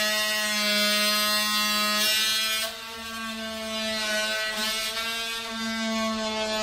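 Cordless Ryobi oscillating multi-tool running with a steady high buzz as its blade cuts a slot in wood. It eases in level for a moment a little before halfway, then carries on cutting.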